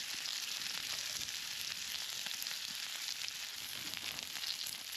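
Steak frying in its own fat on a Trangia grill pan: a steady sizzling hiss with fine crackles.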